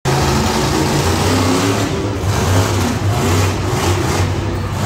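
Several monster truck engines running loudly, revving and easing off as one truck drives up onto a row of crushed cars.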